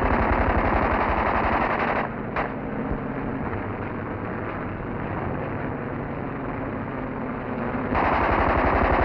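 Rapid automatic gunfire from a Messerschmitt Bf 110's nose guns, a fast even rattle that drops away about two seconds in. The aircraft's engines carry on as a steady, quieter drone, and the firing starts again near the end.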